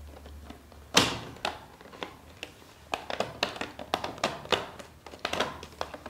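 Knocks and taps of a channel strip being pressed by hand onto the edge of a particleboard shelf panel: one sharp knock about a second in, then a run of quicker, lighter taps and clicks as it is pushed along the edge.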